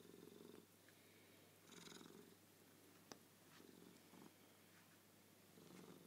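An Oriental cat purring softly, the purr swelling in phases about every two seconds. There is one sharp click about three seconds in.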